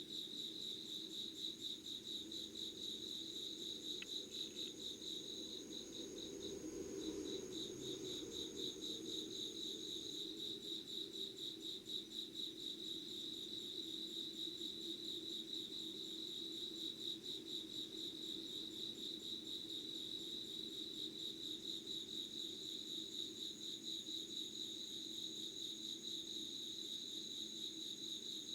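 Crickets chirping in a steady chorus of rapid pulsing trills, one high and a fainter higher one that drops out for a while partway through, over a steady low hum.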